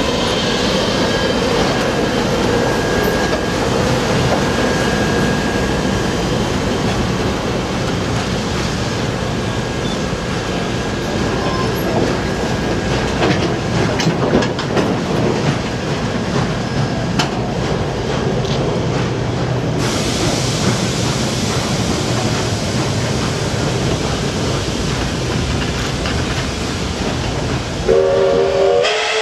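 Train cars of a passenger-and-flatcar train rolling past slowly: a steady rumble of wheels on rails with clicking over the rail joints. Near the end a train whistle begins to sound.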